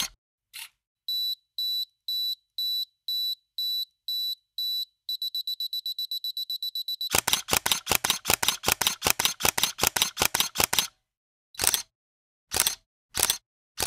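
Canon 550D DSLR beeping about twice a second, then beeping faster for a couple of seconds, the pattern of its self-timer counting down. Then comes a rapid run of shutter and mirror clicks for several seconds, a continuous-shooting burst, and after it single shutter clicks about a second apart.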